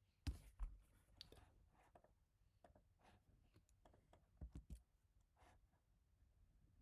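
Scattered, irregular keystrokes on an HHKB Type-S keyboard with silenced Topre switches: two louder knocks near the start and a quick run of three about four and a half seconds in.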